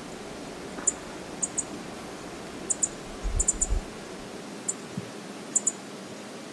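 Steady rushing noise of river water and wind on an outdoor wildlife-camera microphone. About ten sharp, very high ticks come through it, several in quick pairs, with a short low wind thump about three and a half seconds in.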